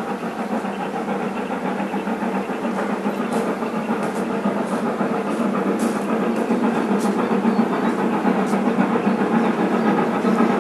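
Steam-hauled passenger train approaching: a steady rumble and hiss that grows slowly louder, with a few sharp clicks in the middle seconds.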